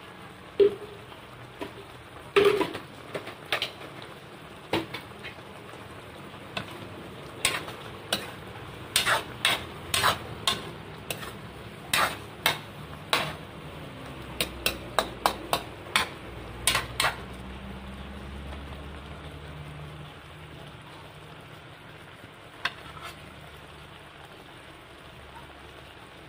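A spoon knocking and scraping against a wok as a simmering stew is stirred: a long run of sharp clinks, several a second at their busiest, which stop about two-thirds of the way through. The stew's steady bubbling and sizzling is heard underneath throughout.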